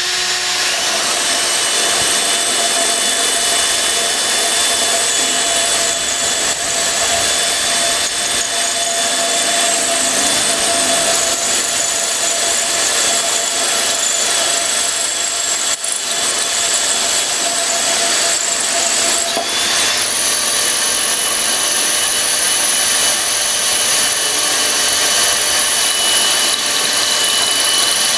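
Two cordless drills running at once, their bits grinding into a grey masonry slab, with a steady motor whine. The pitch of the whine shifts about two-thirds of the way through.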